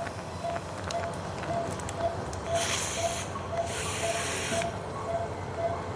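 Surgical patient monitor beeping steadily at about two beeps a second, tracking the anaesthetised dog's heartbeat. Two short hissing bursts sound in the middle.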